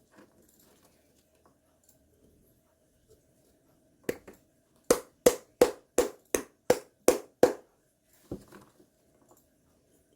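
A run of sharp knocks: one single knock, then seven evenly spaced strikes at about three a second, then one more knock, over a faint steady hum.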